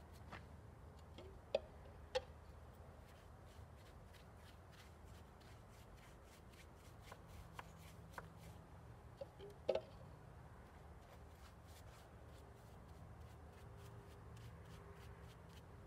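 Near silence: a faint steady low hum with scattered small ticks and a few sharper clicks, two close together near the start and one about ten seconds in.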